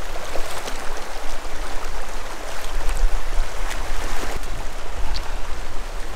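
River water rushing steadily, running high.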